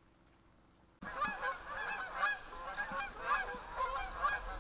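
A large flock of geese honking in flight, many short calls overlapping at once, starting about a second in.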